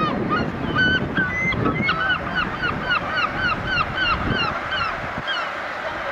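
Gulls calling: a fast series of short yelping notes, each sliding down in pitch, several a second. Wind rumbles on the microphone and drops away near the end.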